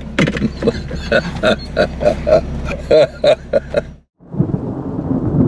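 A man laughing in short bursts inside a vehicle cab, over the steady low hum of the running engine. About four seconds in the sound cuts out, and a rumbling, thunder-like noise of a video glitch transition takes over.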